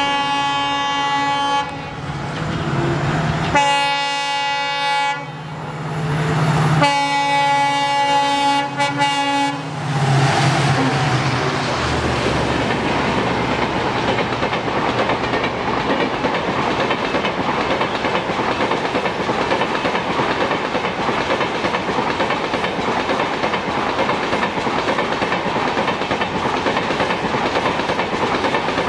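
WDP4D diesel locomotive sounding its horn in three blasts as it approaches at speed, the third blast the longest. The locomotive then passes about ten seconds in and a long rake of express coaches rushes by with a steady rushing clatter of wheels on the rails.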